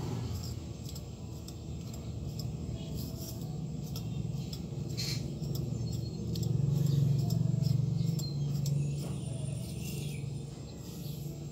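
Light scratchy ticks of a comb drawn through long wet hair. A low hum swells in the middle.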